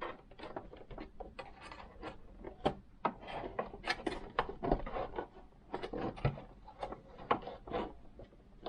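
Plastic housing of a Singer Advance 7422 sewing machine being pried and forced by hand: irregular clicks, knocks and creaking rubs of plastic parts as the case resists coming apart.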